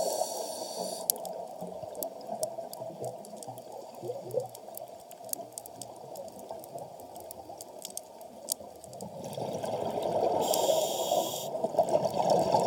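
Scuba diver breathing through a regulator underwater: bubbling exhaled air in the first second, a quieter stretch with scattered sharp clicks, then another long bubbling exhalation starting about three-quarters of the way through.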